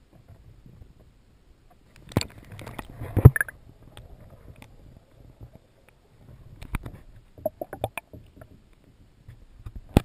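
Muffled underwater sound heard through a waterproof camera housing beneath a kayak hull: low water rumble with sharp knocks and clicks. The loudest knocks come about two and three seconds in, and a run of clicks follows a few seconds later.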